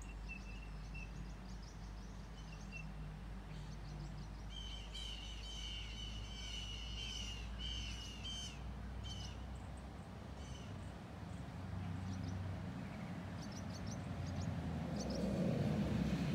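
Wild birds calling and chirping over a steady low background rumble, with a dense run of chirps from about four to nine seconds in and a few scattered chirps later; the background noise swells near the end.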